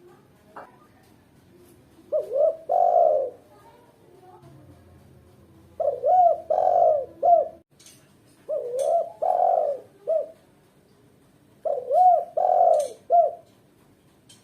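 Female spotted dove (tekukur) cooing: four phrases of three or four coos, about every three seconds, each with one longer, louder coo among short ones.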